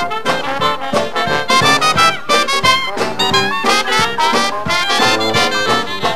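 Traditional New Orleans jazz band playing a blues: trumpet and clarinet lead over a sousaphone bass line, with banjo and drums keeping the beat.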